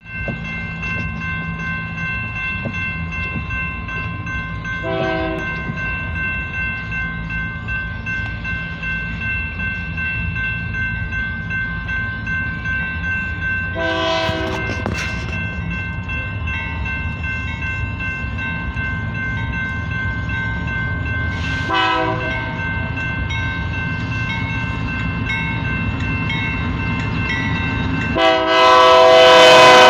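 BNSF double-stack freight train rumbling past, with the diesel locomotive's multi-chime air horn sounding three short blasts spread through the clip and then a long, loud blast near the end.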